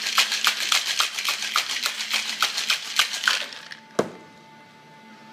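Ice rattling in a cocktail shaker shaken hard, an even rhythm of about four to five strokes a second that stops about three and a half seconds in. A single sharp knock follows about half a second later.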